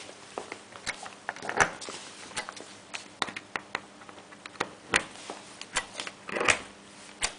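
Banana-plug test leads being pulled out of and pushed into panel sockets: irregular plastic clicks and rustling of the cables, with two longer scuffles, over a faint steady hum.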